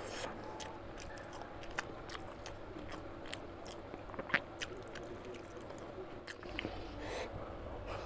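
A man chewing oily mutton curry with rice, with irregular wet smacks and mouth clicks.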